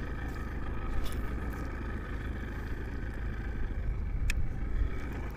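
Small boat's outboard motor running steadily at low speed, with a low rumble of wind and water, and one sharp click about four seconds in.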